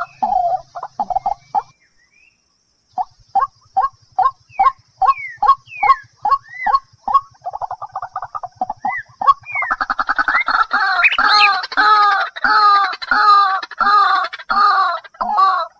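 A bird calling in quick runs of short, repeated notes. After a pause of about a second, the calls come a few a second, then crowd together and get louder from about ten seconds in.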